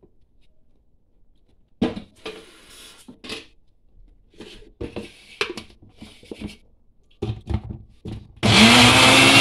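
Plastic blender jar knocking and clattering as it is handled and seated on its base. About a second before the end, the countertop electric blender starts and runs loudly, its motor pitch rising briefly then holding, as it grinds onion, green chillies and curry leaves with a little water.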